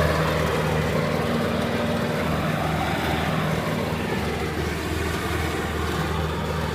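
Riding lawnmower's engine running steadily with an even low hum; too loud.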